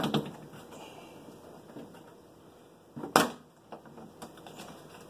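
Quiet handling noises with faint clicks, and one loud, sharp clack about three seconds in.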